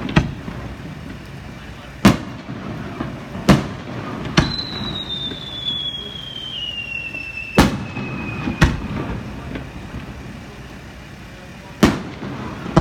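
Aerial fireworks going off: about seven sharp bangs at uneven intervals, each with a short echo. Through the middle, a high whistle falls slowly in pitch for about four seconds.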